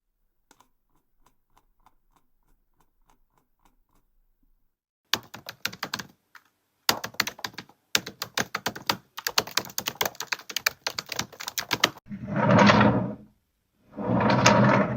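Faint soft clicks for the first few seconds, then fast typing on a computer keyboard for about seven seconds. Near the end come two smooth sliding sweeps of a desk drawer being pushed and pulled.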